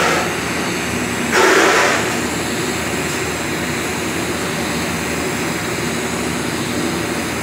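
TIG welding arc burning steadily: an even hiss with a faint underlying hum, and a brief louder rush of noise about a second and a half in.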